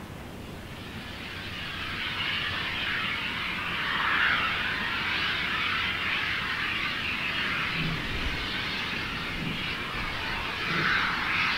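Steam locomotive working a train, heard from a distance as a steady rushing hiss of steam that builds over the first couple of seconds and swells twice.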